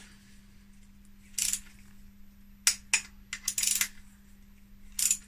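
Torque wrench and socket working the new torque-to-yield connecting-rod cap bolts of a BMW M52B30 engine's bottom end: a handful of short, sharp metallic clicks and clinks.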